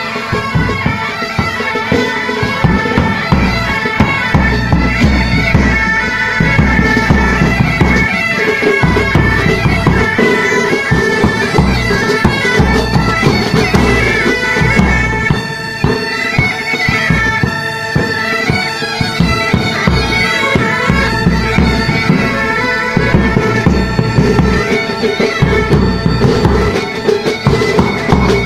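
Pipe band playing: Highland bagpipes with their steady drone under a moving chanter melody, over a beat of snare, tenor and bass drums.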